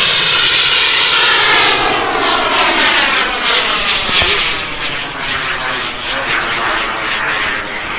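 Turbine engine of a radio-controlled model jet passing close with a sweeping whoosh. It is loudest in the first two seconds, then fades somewhat as the jet climbs away.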